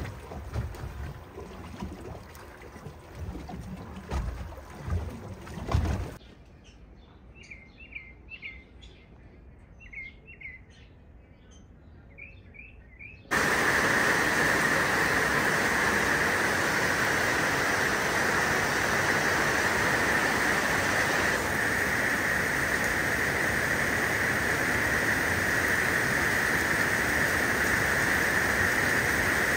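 Wind buffeting the microphone over choppy water from a boat, cutting about six seconds in to quiet with a few short bird chirps, then from about thirteen seconds steady heavy rain falling on garden trees and leaves, the loudest part.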